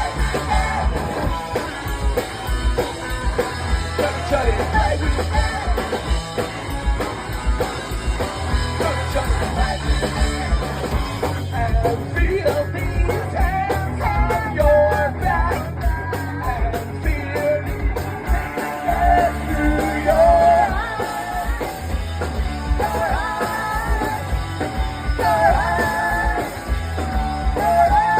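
Pop-punk band playing live at full volume: electric guitars, bass and drums with a steady beat. From about halfway through, a high melodic line rides on top.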